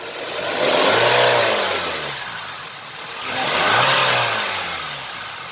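Hyundai Sonata 2.4-litre inline-four engine revved up and let fall back twice, its pitch rising and dropping each time. It is being revved to bring out an engine knock.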